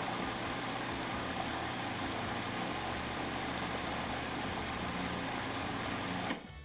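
Electric food processor running steadily as it blends a thin liquid hot-pepper sauce of habaneros, onion, vinegar and water, then switched off and stopping abruptly near the end.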